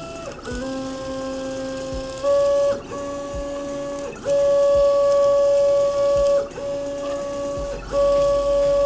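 NEMA 17 stepper motors of a small CoreXY gantry driving it through GT2 toothed belts on a test program, whining in steady tones that jump to a new pitch with each move, about six moves with brief dips between them as the carriage changes direction. Under the whine a crackling rattle from the linear ball bearings, which the builder puts down to poor-quality bearings.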